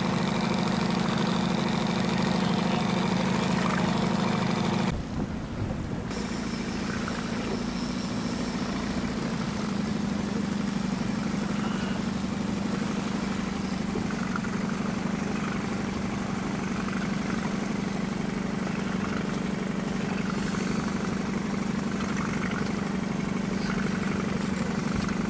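Boat engine running steadily, a constant hum.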